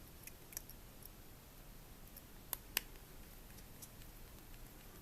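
Light clicks of a small Phillips screwdriver and screw against a mobile phone's plastic housing as the last screw goes back in, with faint ticks and two sharper clicks close together about two and a half seconds in.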